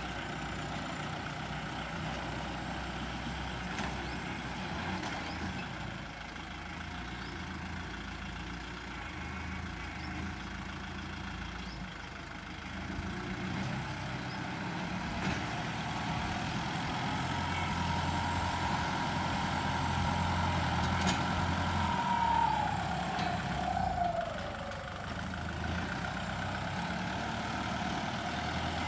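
Turbocharged Kubota tractor's diesel engine running steadily under load as it pulls a disc plough through sandy soil. The engine grows louder past the middle, with a high whine that falls away about three quarters through.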